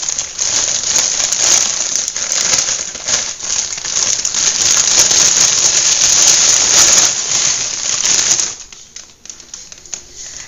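Clear plastic wrapping crinkling as it is pulled off an artificial flower showpiece, a dense run of crackles that stops about eight and a half seconds in.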